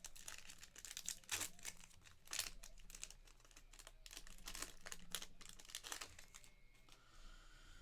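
Trading-card pack wrapper crinkling and cards being handled: a run of faint, irregular crackles and ticks.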